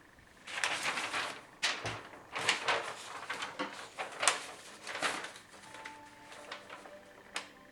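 Handling noise from computer case parts: a run of irregular scraping and rustling bursts with several sharp clicks, easing off after about five seconds, then one last click near the end.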